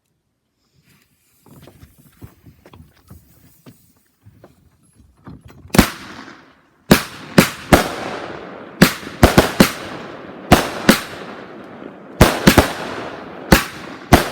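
Fireworks going off: faint crackling for the first few seconds, then over a dozen loud, sharp bangs in quick, uneven succession, each with an echoing tail.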